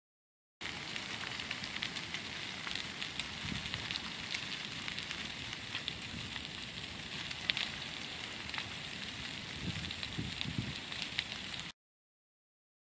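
Burning brush pile crackling: a steady hiss of flames dotted with many small sharp pops. It starts and cuts off suddenly.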